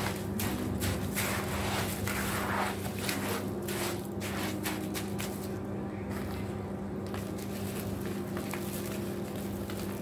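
Gloved hands squeezing and crumbling damp white cement in a metal bowl: gritty, crackling squelches in quick succession, with a lull about halfway through before the crumbling resumes. A steady low hum runs underneath.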